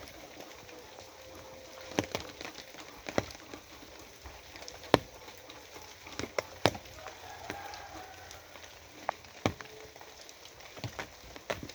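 Rain falling with a steady hiss, and large drops striking a hard surface in sharp, irregular ticks about every second or two.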